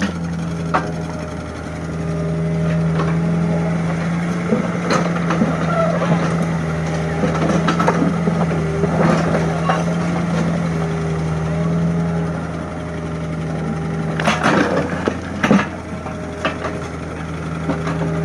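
An engine running at a steady speed with a constant low hum, under scattered knocks and clanks; a cluster of louder knocks comes about 14 to 15 seconds in.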